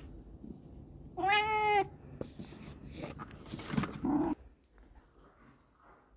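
A cat meowing: one clear call about a second in that rises and falls in pitch, then a shorter, lower call about four seconds in.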